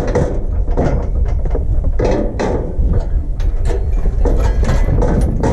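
Steel cattle chute rattling and clanking in a run of short metallic knocks as a calf shifts inside it, over a steady low rumble.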